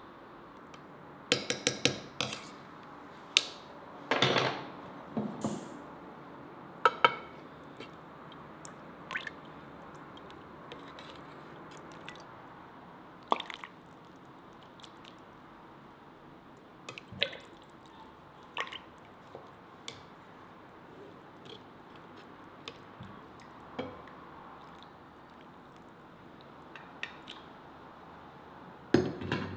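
A metal ladle clinks and scrapes against an Afghan kazan (a cast aluminium pressure cooker) and a ceramic bowl as shurpa is served out. Broth pours and drips from the ladle between the scattered clinks, which come in a quick cluster about a second in and again near the end.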